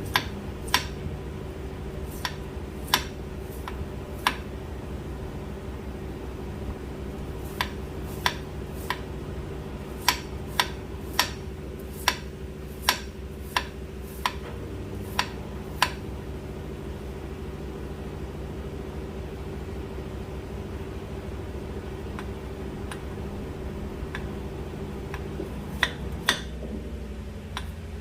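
Kitchen knife slicing water chestnuts thinly on a cutting board: sharp knocks at an uneven pace of about one or two a second, which pause for about ten seconds after the middle and resume near the end, over a steady low hum.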